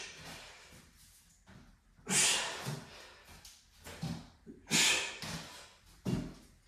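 A man's sharp, forceful exhalations from the effort of kettlebell push-ups, three loud ones spaced two to three seconds apart with fainter breaths between.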